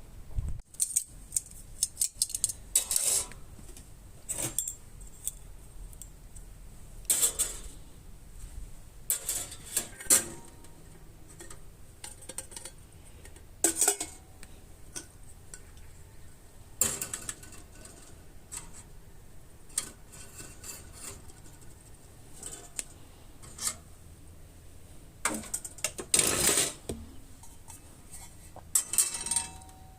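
Thin sheet-metal tin parts clinking, clattering and scraping as they are handled, in irregular bursts a second or two apart.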